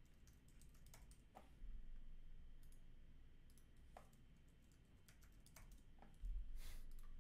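Faint, scattered keystrokes and clicks on a computer keyboard as folder names are typed, with a couple of soft low thumps.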